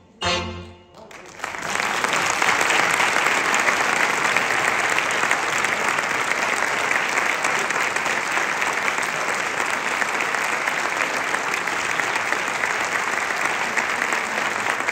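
A cobla band's short closing chord, then audience applause that breaks out about a second and a half in and carries on steadily.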